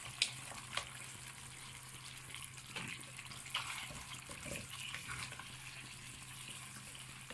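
Raw chicken pieces sizzling as they go into a hot pan of oil, butter and onion paste on high heat, a steady hiss with a few light clicks against the pan.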